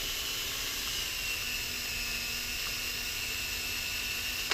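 Power drill running at steady speed with its bit in a shallow blind pin hole in an AR-15 flash hider, a light cleanup pass with little downward pressure to clear chips from the hole. A steady high whine sits over the motor noise, and the drill cuts off suddenly.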